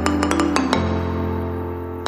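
Background music: sustained low synth chords under quick, bell-like plucked or mallet notes, with a chord change just before the middle.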